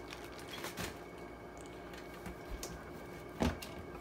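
Handling noises as items are set down and picked up: a few light clicks and knocks, with one dull thump about three and a half seconds in.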